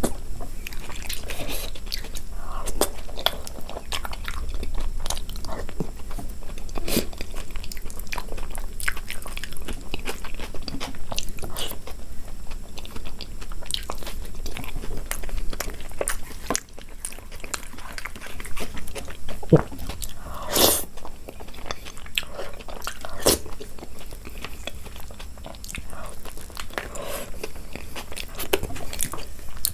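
Close-miked eating: chewing and biting with many short wet clicks and crunches, and one louder crunch about twenty seconds in.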